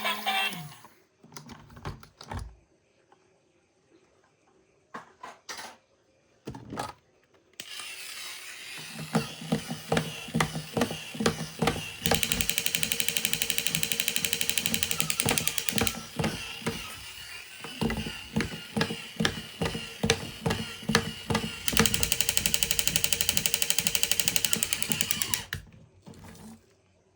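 A small toy vehicle's motor and plastic gears running with a rapid ratcheting clicking, louder in two stretches. Scattered plastic clicks and knocks from handling come before and between them.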